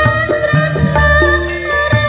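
Live jaranan sentherewe music through a sound system: a steady drum beat of about two strokes a second under a sustained melodic line and a heavy bass.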